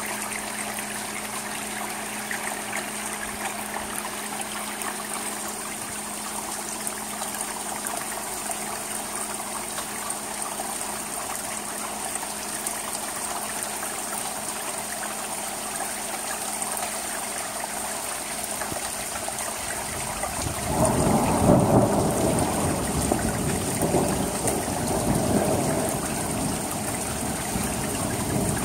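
Steady rain falling on asphalt roof shingles and into the gutter, an even hiss. About two-thirds of the way through, a louder low rumbling comes in and keeps going.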